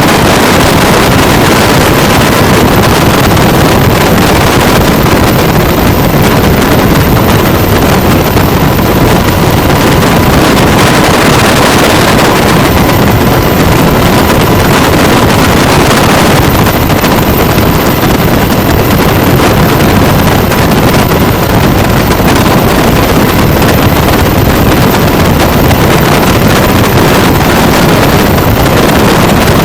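UH-60 Black Hawk helicopter running: loud, steady rotor and turbine noise with no let-up.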